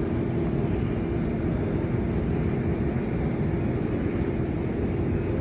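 Steady roar of a jet airliner's engines as it takes off.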